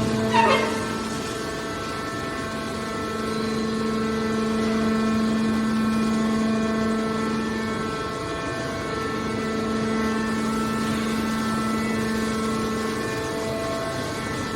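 Hydraulic power unit of a scrap-metal push-out baler running steadily: a constant pitched hum-whine with several overtones. A short falling metallic screech comes in the first second.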